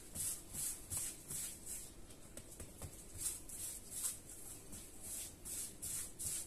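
Hands rolling and tucking pizza dough balls on a floured granite worktop: a soft rhythmic swishing of skin and dough sliding over the stone, about two or three strokes a second.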